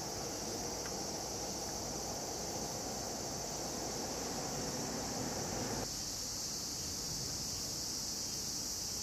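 Steady, high-pitched drone of a summer insect chorus, with a low background rumble that cuts off suddenly about two-thirds of the way through.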